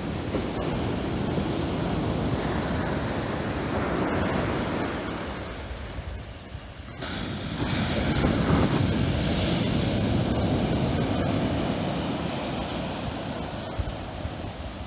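Surf of the Mediterranean: waves breaking and washing up a sandy beach, with wind on the microphone. About seven seconds in the sound cuts off abruptly and returns louder as waves break close by.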